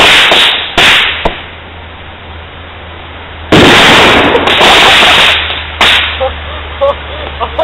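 Ground-fired fireworks going off in dense runs of crackling bangs and hiss: one loud run at the start, a sharp bang about a second in, and a second loud run starting about three and a half seconds in. A last sharp bang comes near six seconds, and the noise then dies down.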